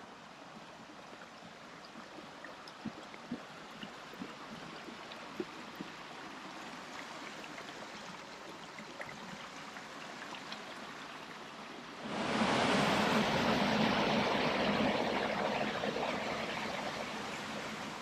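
Stream water rushing, cutting in suddenly about two-thirds of the way through and staying loud. Before that, only a faint steady hiss with scattered light ticks.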